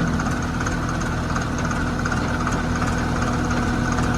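Diesel engine idling steadily: an even hum with a constant whine over it.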